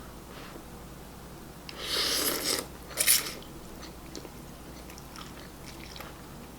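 A person taking a big bite of ramen noodles with chopsticks: two loud noisy mouth sounds about two and three seconds in, then soft chewing clicks.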